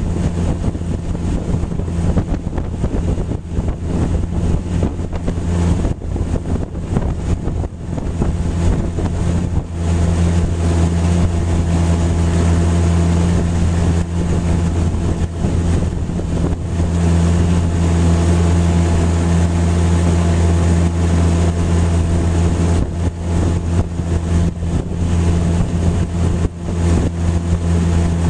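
Freshly repaired Tohatsu outboard motor running steadily under way on a test run, a constant engine tone with no change in speed.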